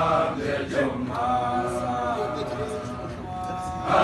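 A group of schoolboys singing a gwijo, a Xhosa group chant, together in unison, holding long steady notes.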